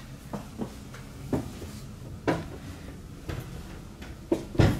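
Irregular footsteps thudding along the aisle of a tram-train car, seven or so steps, the heaviest near the end. Under them runs a steady low hum inside the car.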